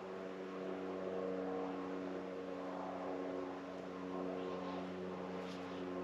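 Steady machine hum holding one pitch throughout, like an engine or motor running at a constant speed. A couple of faint, short high chirps come about five and a half seconds in.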